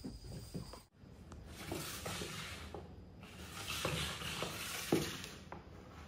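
A kitten pushing an overturned clear plastic container across a laminate floor: the container scrapes and rubs along the boards in two stretches of about two seconds each, with small knocks, starting about a second in.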